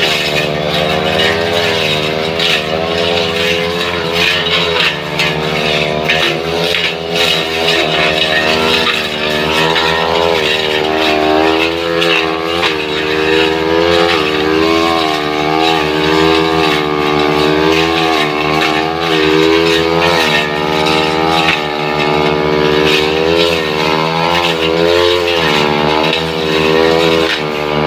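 Two-stroke brush cutter engine running at high revs, its pitch dipping and rising over and over as the blade is worked against wood.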